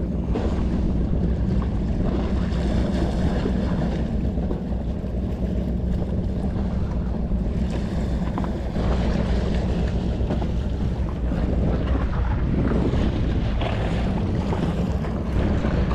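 Wind buffeting the microphone in a steady low rumble, with small waves washing against the rocks of a jetty and swells of hiss every few seconds.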